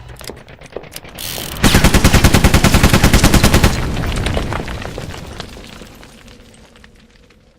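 Automatic gunfire: a few sharp clicks, then a rapid burst of about two seconds at roughly ten shots a second, followed by a long fading echo.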